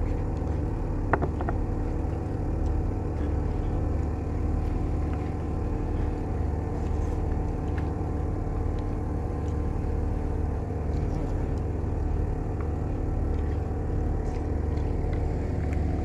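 Steady low engine rumble, with a single light clink of metal utensil on a bowl about a second in.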